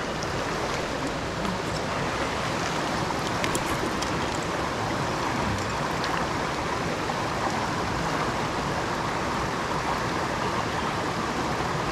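A small mountain brook's water rushing over its bed, a steady, even noise.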